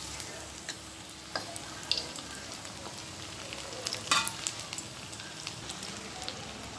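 Grated-potato balls deep-frying in hot oil in a metal kadai: a steady sizzle with scattered pops, while a perforated metal slotted spoon moves among them. There are a few sharp clicks, the loudest about four seconds in.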